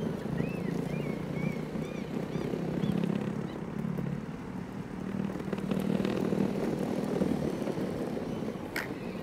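Urethane wheels of an Exway X1 electric skateboard rolling over interlocking concrete pavers, a steady rumble, with one sharp click near the end.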